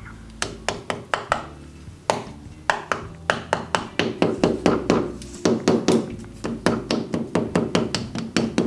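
Series of light hammer taps seating a new grease cap (dust cap) into a 1985 Monte Carlo's wheel hub, each with a short metallic ring, coming faster as it goes, up to several taps a second.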